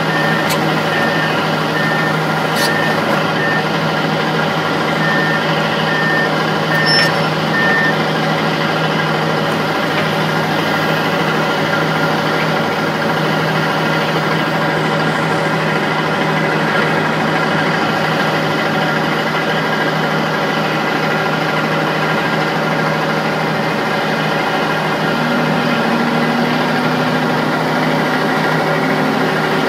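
Komatsu PC200LC excavator's six-cylinder diesel engine running steadily as the machine tracks up onto a lowboy trailer. A repeating high-pitched beep, the travel alarm, sounds for about the first eight seconds, then stops.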